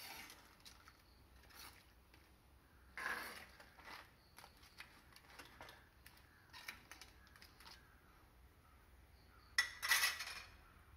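Utensil scraping and knocking against a clay cooking pot and crab shells while stirring crab curry: scattered short clattering strokes, with the loudest cluster near the end.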